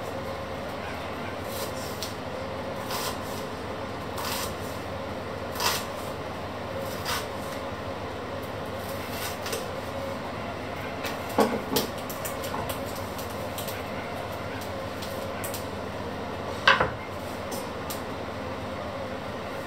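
Kitchen knife slicing an onion on a wooden cutting board: irregular knocks of the blade against the board over a steady background hum, with the loudest knock near the end.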